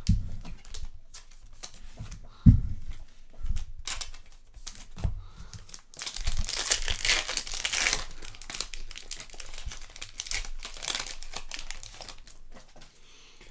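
Donruss Baseball 2021 hobby card pack wrapper being crinkled and torn open, with the densest crinkling just past the middle. A few knocks and one low thump about two and a half seconds in, the loudest moment.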